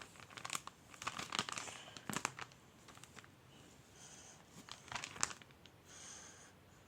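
Crinkling and crackling of something being handled, in irregular clusters of sharp clicks and short rustles, loudest in the first two and a half seconds and again around five seconds in.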